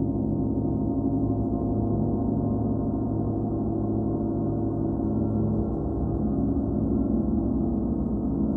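Paiste Sound Creation Earth gong, 38-inch, sounding a continuous, even wash of many overlapping low tones, with no separate strikes standing out.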